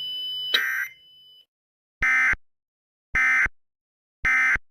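Emergency Alert System end-of-message signal: three short, identical buzzy data bursts about a second apart, marking the end of the alert. Before them, a steady high tone cuts off with a click about half a second in.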